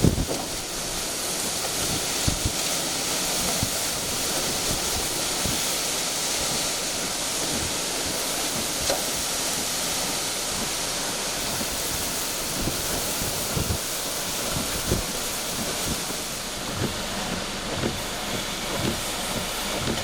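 Hurricane wind and driving rain: a steady loud hiss, with gusts buffeting the microphone in short low thumps.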